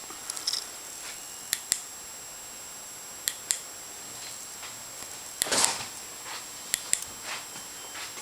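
Scattered sharp clicks, several of them in quick pairs, and a brief scuffing noise about five and a half seconds in, over a faint steady high-pitched whine.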